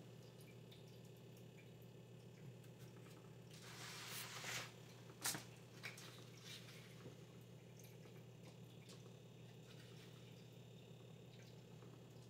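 Mostly near silence over a steady low hum, with faint wet squishing and light clicks as raw shrimp and bay scallops are picked from a tray and laid onto chopped vegetables on foil. A brief rustle comes about four seconds in, and a sharper click just after five seconds.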